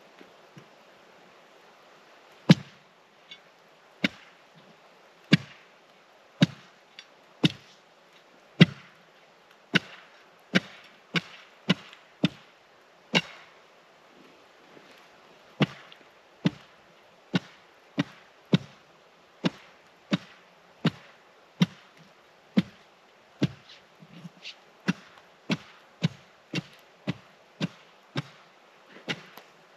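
Repeated chopping strikes on lake ice, each a sharp crack with a dull thud under it. The tool is chipping a hole through the ice, and the strikes come about once a second, quickening to about two a second near the end.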